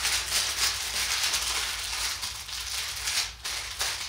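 Handling noise: a dense rustling and rattling close to the microphone, with a steady low hum underneath.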